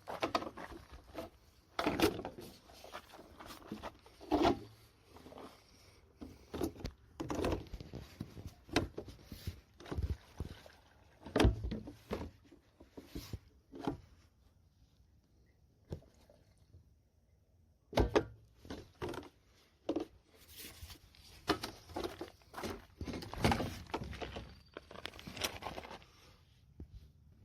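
Irregular knocks and thumps of someone moving about and handling things, with quieter pauses between; two sharper knocks stand out, near the middle and about two-thirds of the way in.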